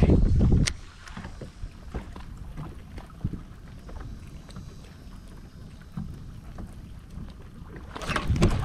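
Wind buffeting the microphone, loudest in a short burst at the start, then a low steady rumble with scattered faint clicks and knocks from rod-and-reel handling; the rumble rises again near the end.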